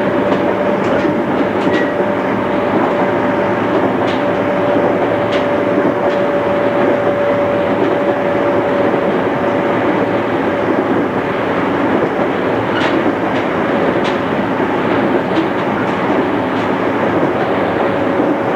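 JR East 211 series electric train heard from inside the car while running at steady speed: a constant rumble of wheels on rail with a steady whine that fades about midway and comes back near the end. Scattered sharp clicks from the rail joints.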